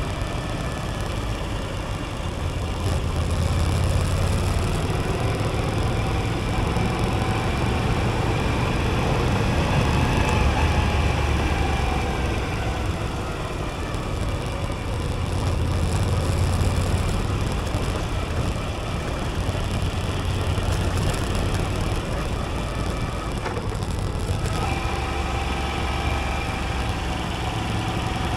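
Moto Guzzi V85TT's air-cooled transverse V-twin running while the bike is ridden along a winding road, its low engine note swelling and easing several times with the throttle, under a steady rush of wind.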